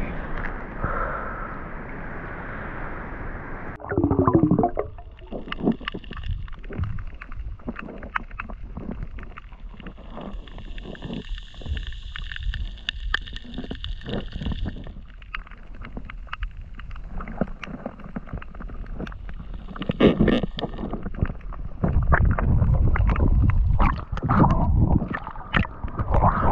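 Muffled gurgling and sloshing of water heard through an action camera held underwater over a coral reef, with many faint clicks throughout. The water noise grows louder, with splashing and gurgling, for the last few seconds as the camera comes up near the surface.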